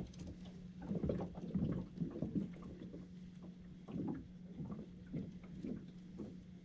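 Small aluminium boat rocking on the water: soft, irregular knocks and splashes of water lapping against the hull. Under them runs a steady low hum from an electric trolling motor.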